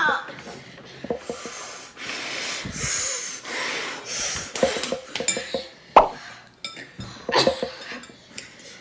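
Forks clinking and scraping against glass bowls of noodles in scattered short clicks, with sniffs and breaths between them.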